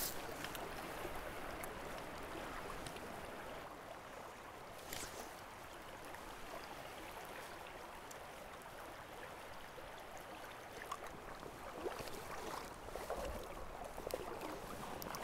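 Shallow stream riffles running, a faint steady rush of water, with a few soft knocks now and then.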